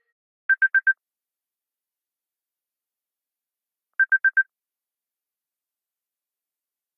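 Apple phone ringtone of quick electronic beeps at one pitch: a burst of four short beeps, then after about three seconds of silence another burst of four.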